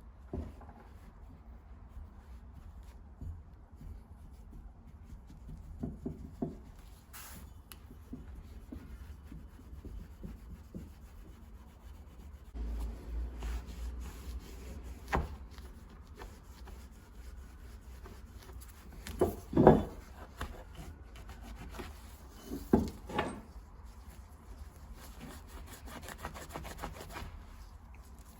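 Hand rubbing and handling on a small brass tool, with scattered light knocks and clatters of parts. The loudest knocks come about two-thirds of the way through: a close pair, then another a few seconds later.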